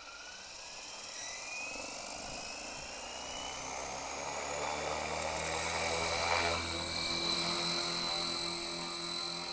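Electric 3DX500 RC helicopter spooling up: the motor and rotor whine rises steadily in pitch and grows louder over the first few seconds, then settles into a steady high whine with the rotor's buzz.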